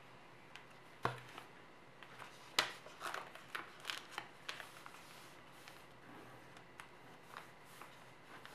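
A sheet of origami paper being folded and creased by hand on a tabletop: faint paper handling with sharp crisp snaps and taps. The sharpest come about a second in and again at about two and a half seconds, followed by a run of smaller ones.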